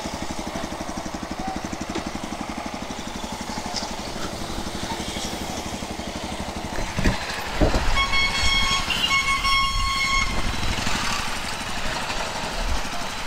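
Motorcycle engine idling steadily, with a vehicle horn sounding in two short blasts about two-thirds of the way through.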